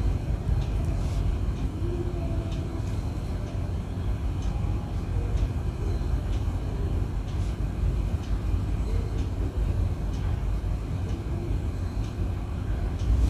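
Steady low background rumble, with faint light ticks scattered through it.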